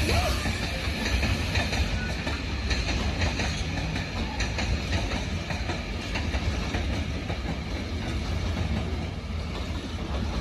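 Rake of engineers' wagons rolling past, a steady rumble with the clickety-clack of wheels over rail joints, easing off a little near the end.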